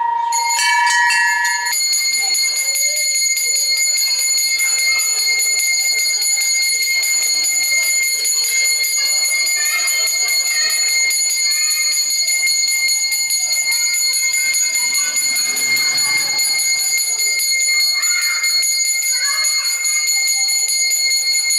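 Temple bells ringing continuously during puja: a fast, unbroken high-pitched clangour. A lower brass bell's ring dies away in the first two seconds.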